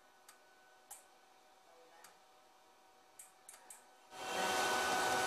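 Faint, scattered clicks and ticks from hands working the knobs of a regulated DC bench power supply, about six in all. About four seconds in, a steady hiss sets in suddenly and is the loudest sound.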